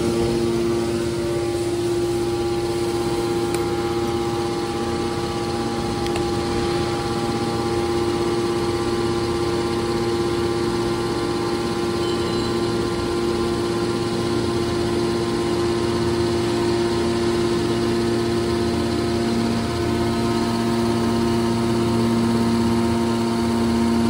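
Electric motor and hydraulic pump of a scrap metal baler's hydraulic power unit running, a steady hum with a constant whine that holds the same pitch and level throughout.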